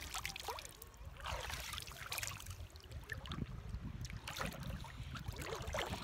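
Shallow sea water splashing and lapping around legs wading over a rocky, pebbly bottom, with wind rumbling on the phone's microphone.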